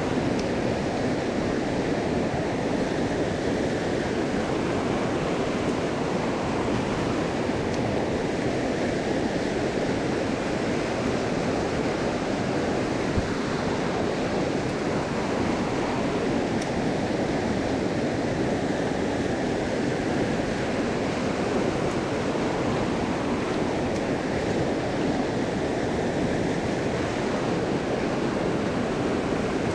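Steady rush of water from a small mountain stream, an even, unbroken sound with no change in level.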